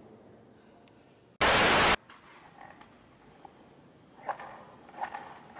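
A loud burst of static hiss about a second and a half in, lasting half a second and cutting off abruptly. Near the end come a few faint clicks and scrapes as a large kitchen match is handled against its box.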